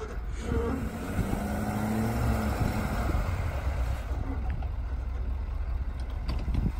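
2017 Ford F-350 dually's 6.7L Power Stroke V8 turbodiesel running under light load while the truck pushes snow with a utility plow. The engine note swells about half a second in and eases off after about four seconds.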